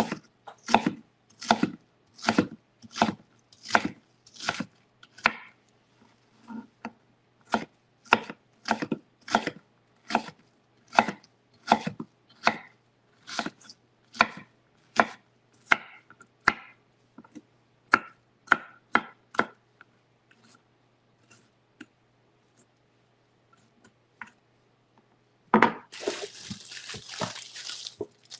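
Kitchen knife dicing a sweet Vidalia onion on a wooden cutting board: steady chopping knocks, about one and a half a second, that thin out and stop about twenty seconds in. Near the end comes a short rustling scrape.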